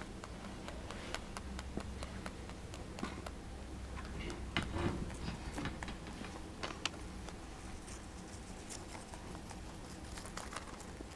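Netherland Dwarf rabbit chewing timothy hay: a quick, irregular run of small crisp crunches as the dry stalks are bitten through, with a louder rustling bump a little before the middle.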